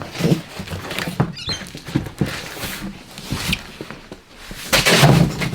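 Hands handling bike parts and packaging: rustling with many small knocks and clicks, then a louder burst of rustling near the end.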